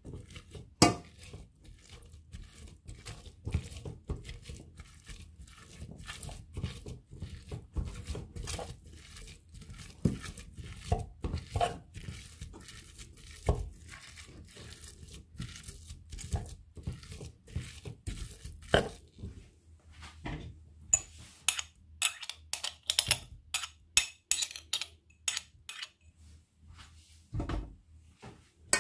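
Cooked fava beans being mashed in a stainless steel pot, with irregular knocks, clinks and scrapes against the pot. The strokes come faster and sharper in the last third.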